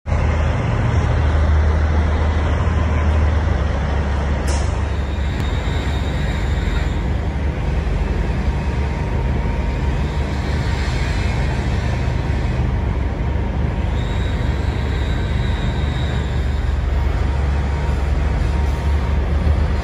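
Kenworth T800 semi's Cat diesel engine running with a steady deep rumble as the truck rolls slowly, with a sharp click about four and a half seconds in.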